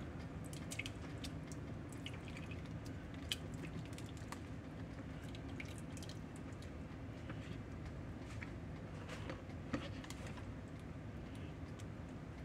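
Wet mashed yellow squash being scraped with a silicone spatula from a bowl into a glass measuring cup: soft drips and squishes, with scattered light clicks of the spatula against the bowl and the cup's rim, over a steady low hum.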